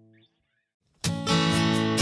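Background music: the last held chord of one track dies away, a brief gap of silence follows, and about a second in a new track starts with strummed guitar and a steady rhythm.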